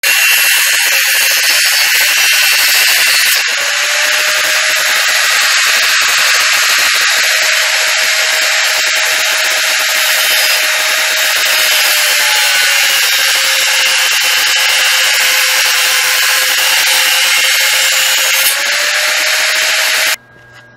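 Electric angle grinder running with its disc ground against a piece of metal: a loud, steady hiss with a motor whine that wavers slightly with the pressure. It cuts off suddenly near the end.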